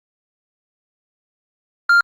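A home alarm unit gives one short, high-pitched electronic beep near the end, the first of a double beep, as it signals a step in pairing a device.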